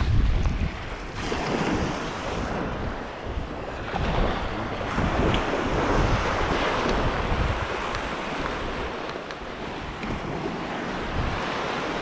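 Lake waves breaking and washing on the shore, with wind buffeting the microphone, strongest at the start.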